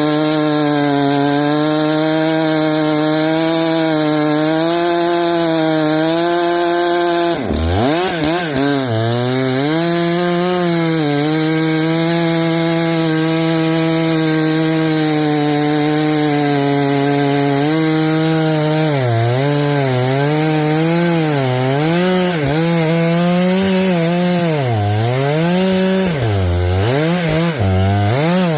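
Stihl MS661 C two-stroke chainsaw running at full throttle as it cuts through a thick oak log. The engine note sags and recovers under the load of the cut, with a sharp dip about seven seconds in and repeated dips over the last third.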